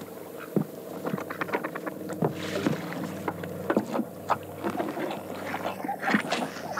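Irregular wooden knocks and thumps of boots and a long pole on a wooden punt as a man steps aboard and handles the pole, with some water movement.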